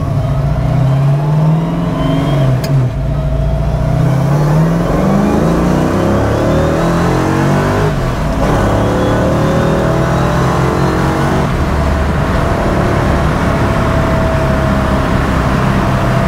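A 347 stroker small-block Ford V8 in a 1966 Mustang is pulling hard under acceleration, heard from inside the cabin. Its pitch climbs and drops back at gear changes about 2–3 s and 8 s in, then steadies to a cruise near the end.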